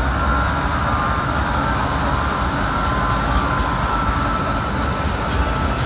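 CSX diesel-electric freight locomotives passing close by in a lashed-up consist. Their engines and wheels make a steady, loud rumble, with thin steady high tones over it.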